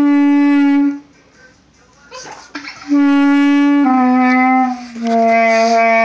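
Clarinet playing long, low held notes. The first stops about a second in. After a pause with a short, quieter noise, three notes follow back to back from about three seconds in, each a little lower than the last.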